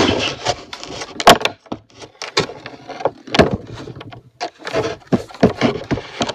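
Handling noise of a wooden box being flipped over and set down close to the microphone: an irregular string of knocks, thuds and scrapes, the sharpest knock about a second in.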